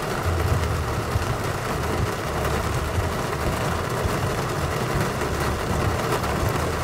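Car engine idling, heard from inside the cabin, under a steady hiss of wind and rain on the car.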